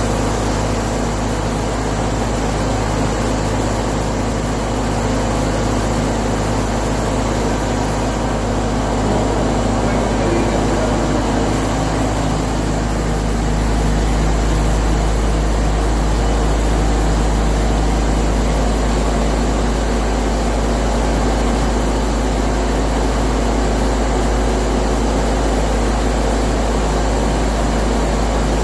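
Steady drone of a paint spray booth's ventilation with the hiss of a compressed-air spray gun applying clear coat to polished alloy wheels. The low hum and hiss run on evenly, with no breaks.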